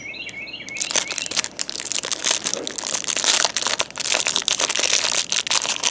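Plastic wrapper of a trading-card pack crinkling and crackling as it is handled and ripped open close to the microphone. A bird chirps a few quick notes at the start.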